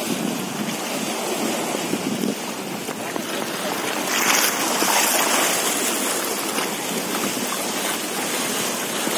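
Sea surf washing and splashing against a line of rusty iron posts, with wind buffeting the microphone; the wash swells louder about four seconds in.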